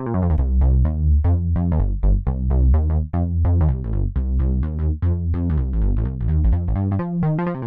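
Electronic music: a synth bass loop of short, quickly repeated notes, heavy in the low end with little treble and no hi-hats.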